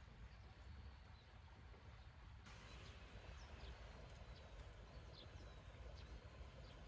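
Near-silent riverside ambience with a faint low rumble; from about two and a half seconds in, faint birds chirping, a handful of short, high, falling notes.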